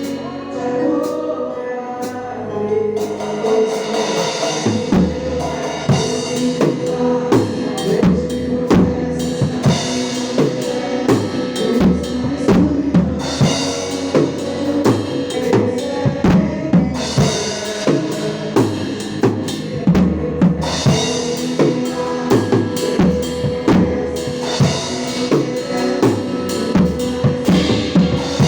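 Instrumental break in a gospel song: a drum kit plays a steady beat on bass drum and snare, with cymbal crashes, over held keyboard chords. The drums come in about three seconds in.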